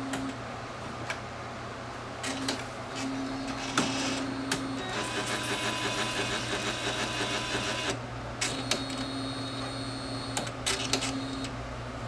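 Wide-format inkjet printer mechanism working: a low motor whine that comes and goes, scattered sharp clicks, and from about five to eight seconds a denser, higher-pitched noisy sound.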